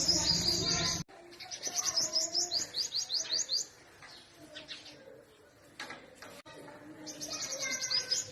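Purple sunbird singing: fast, high trills of rapidly repeated notes in three bursts, the longest about two seconds. Other birds call more softly underneath.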